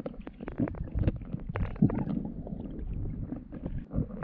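Underwater sound picked up by a camera held below the surface: a muffled low rumble of water moving around the housing, with many small clicks and crackles.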